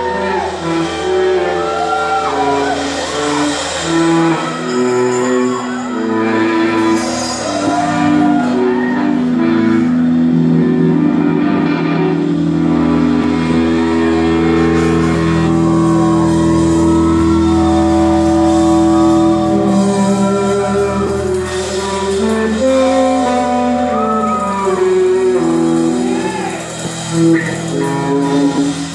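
Live rock band playing in a large hall: electric guitar holding long sustained notes over drums and a steady low end.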